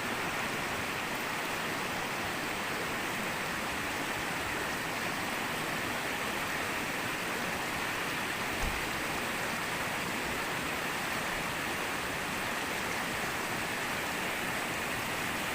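Steady hiss of rushing water, unbroken throughout.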